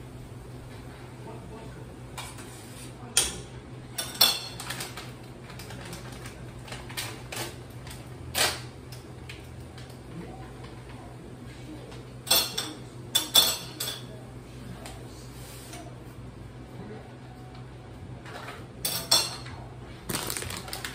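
Dishes and utensils clinking and clattering as they are handled on a kitchen counter: short, sharp knocks every few seconds, with a cluster of them about halfway through and again near the end, over a steady low hum.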